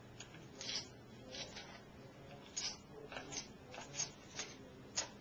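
A pen scratching short marking strokes on a pink foam block, in a string of brief scratches about every half second.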